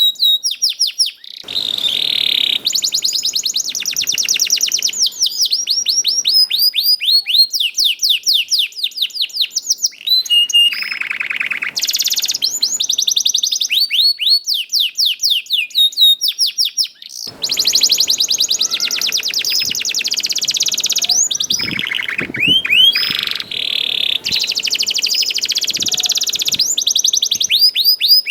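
Domestic canary singing a long, loud song of fast repeated downward-sweeping chirps, several a second, run together into trills and rolls.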